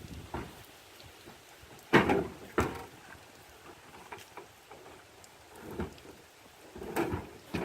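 Irregular knocks and thumps of a large box being handled: two sharp loud bangs about two seconds in, lighter knocks in between, and two more bangs near the end.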